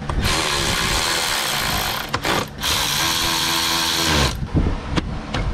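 Cordless screwdriver with an extension and 7 mm socket, driving trim screws into the dash panel. It runs in two bursts of about two seconds each with a short pause between, winding down in pitch as the second burst stops, and a few light clicks follow near the end.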